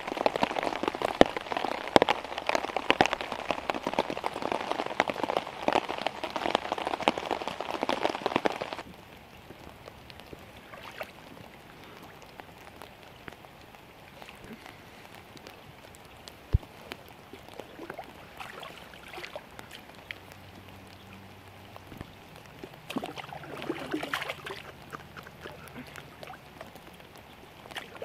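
Heavy rain pattering on a tarp, a dense patter of many separate drop hits. About nine seconds in it suddenly drops to a much softer, steady rain patter with scattered drops.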